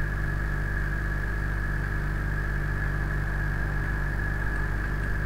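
Steady electrical mains hum with a constant hiss and a faint high whine, unchanging throughout.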